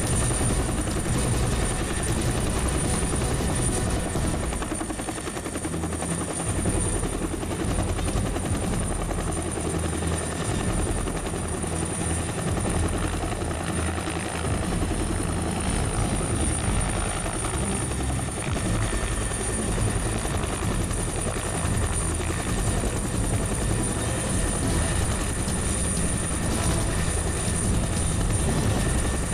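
Helicopter hovering with a load slung on a long cable, its rotor and engine running steadily, with a thin steady high tone above them.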